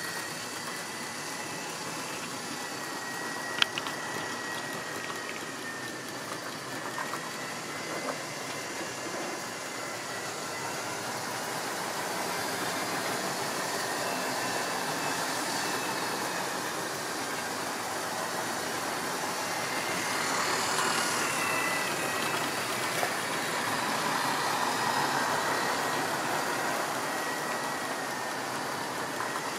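Tri-ang or Lima model train running round the layout: the steady whine of the locomotive's small electric motor over the rolling hiss of wheels on track, louder about two-thirds of the way through as the train comes nearer. One sharp click a few seconds in.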